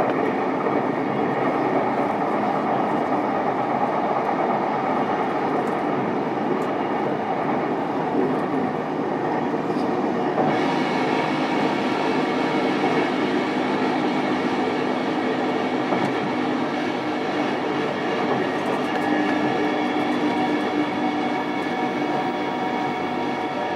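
Running noise of a JR East E233-series electric train heard from inside a motor car: the steady rumble of wheels on rail and traction motor hum. About ten seconds in, a higher hiss with a faint whine joins it.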